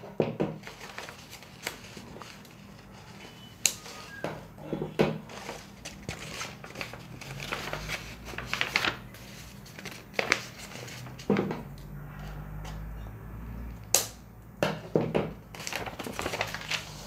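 Stiff paper pattern pieces rustling and crinkling as they are handled and folded, with irregular taps and a few sharp clicks.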